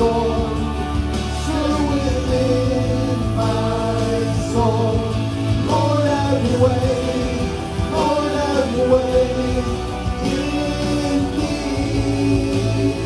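Slow worship song: singing voices held over sustained instrumental accompaniment.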